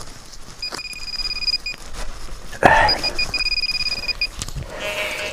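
Metal detector giving its high, steady signal tone in short pips and longer beeps, a sign that it is over metal in the ground. About halfway through, a loud crunching scrape.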